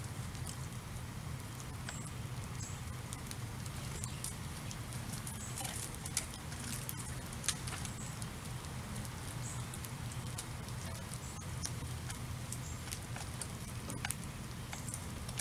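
House sparrows pecking at scattered birdseed on pavement: a scatter of light ticks and clicks, a couple of them sharper, over a steady low hum.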